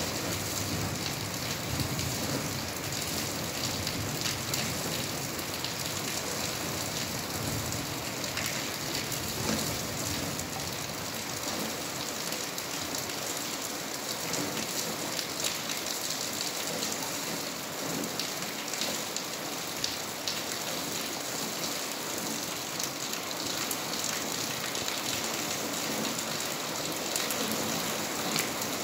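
Steady rain falling, an even hiss with many separate drops ticking throughout.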